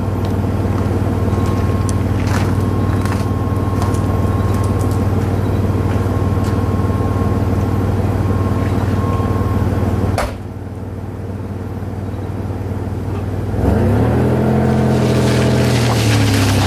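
An engine running steadily, stopping abruptly with a click about ten seconds in. A few seconds later an engine revs, its pitch rising and falling.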